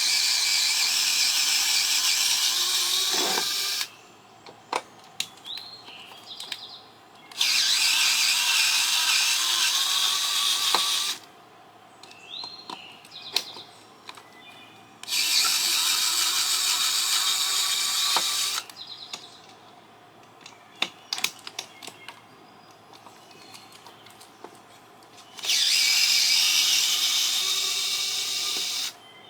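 A small power driver backing out little screws from an aluminium LNBF housing, its motor whirring in four runs of about four seconds each, with small clicks and clinks of handling in the pauses between.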